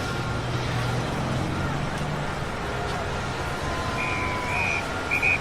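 Road traffic noise from moving vehicles, with a steady low engine hum. Two short high-pitched wavering tones come near the end.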